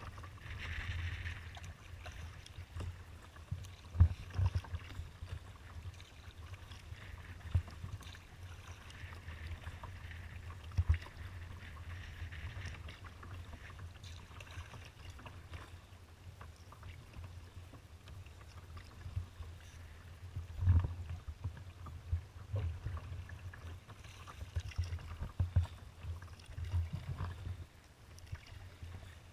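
Water splashing and lapping against a kayak's hull as it moves, with steady wind noise on the microphone and scattered sharp knocks against the hull.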